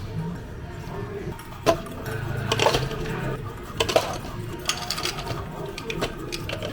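Clatter of cafe counter work: a handful of sharp knocks and clinks from cups, dishes and utensils being handled, over a low steady hum.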